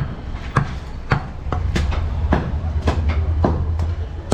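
Butcher's cleaver chopping goat meat with steady, even strikes, a little under two a second. A low rumble runs underneath and grows louder about a third of the way in.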